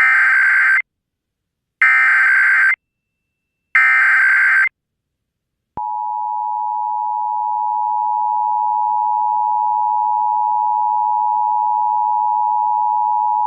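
Emergency Alert System SAME header: three one-second bursts of digital data tones a second apart. About six seconds in, the steady two-tone EAS attention signal (853 and 960 Hz) begins and holds.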